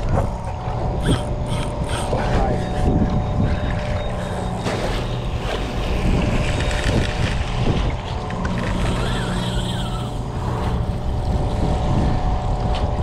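Boat engine running steadily under wind and water noise, with a few short clicks in the first couple of seconds as a large spinning reel is cranked against a hooked fish.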